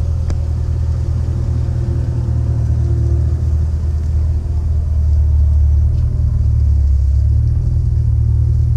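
Renntech-tuned Mercedes SL55 AMG's supercharged V8 running with a deep, steady drone that grows a little louder about halfway through.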